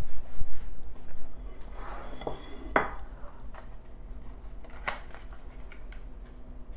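A few light knocks and clinks of a ceramic plate being moved about on a wooden countertop, with a cardboard pie box rustling as it is handled. The sharpest knock comes a little under halfway through, another near the end.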